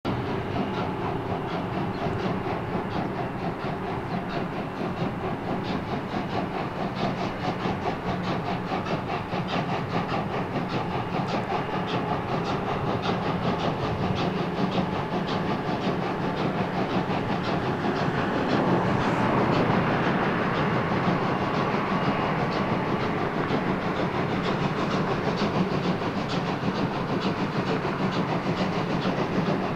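German class 44 steam locomotive 44 546, a three-cylinder 2-10-0, working hard at the head of a heavy freight train: a quick, steady run of exhaust beats that grows louder about two-thirds of the way through.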